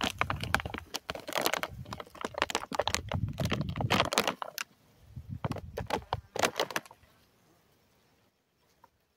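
Close, irregular rustling and clicking handling noise with a few dull thumps, stopping about seven seconds in.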